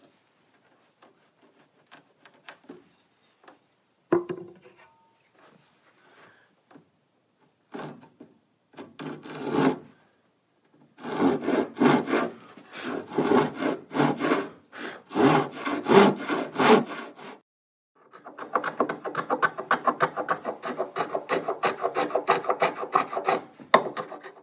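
Handsaw cutting a compound bevel across the end of a wooden boat chine. A few light taps and scrapes, then short starting strokes, then steady back-and-forth sawing strokes, quickening into fast continuous strokes in the last several seconds.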